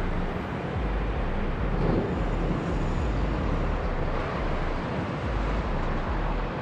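Steady, noisy rumble of a Boeing 787-9 Dreamliner's jet engines as the airliner rolls along the runway, heard from afar.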